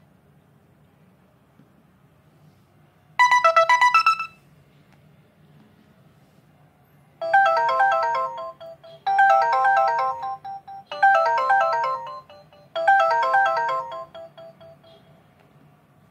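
Samsung ringtones played through a ZTE Z222 phone's speaker. About three seconds in there is a brief burst of quick, bright notes. From about seven seconds a short melodic phrase plays four times in a row, each time just under two seconds long.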